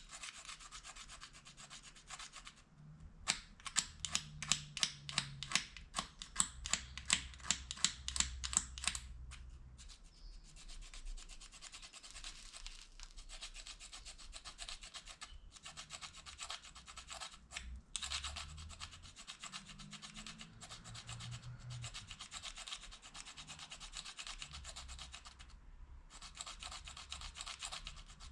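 Plastic fork prong scraping along the edge of a plastic spoon in steady rubbing strokes. For several seconds near the start the strokes come quicker and sharper, about four a second, with short breaks between bouts after that.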